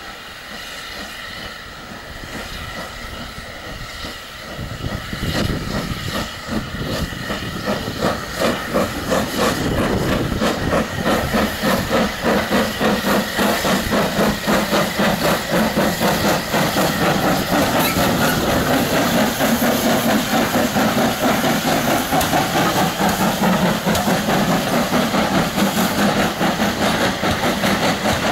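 Steam locomotive pulling away with a train of coaches. At first there is a steady hiss of steam. About five seconds in the exhaust beats begin, grow louder, and settle into a regular chuff of about two beats a second.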